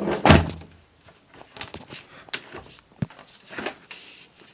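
A uPVC window sash being handled and fitted onto its new hinges. A louder knock-and-scrape comes right at the start, then several short, sharp clicks and knocks of plastic and metal hardware.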